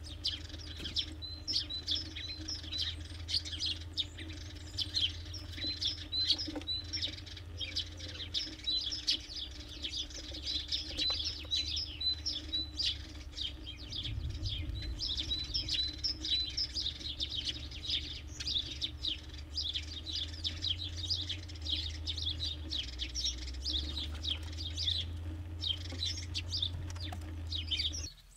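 Small songbirds chirping continually, many short high notes in quick succession, over a steady low rumble. It all cuts off abruptly just before the end.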